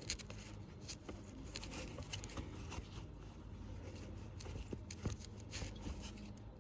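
Faint rubbing with scattered light clicks and knocks as a part is wiped clean by hand, over a low steady background hum.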